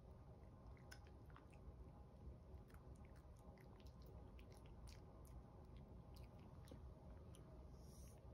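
Chihuahua puppies chewing small pieces of dry food slowly and gently: faint, irregular crunches and clicks over a low steady room hum.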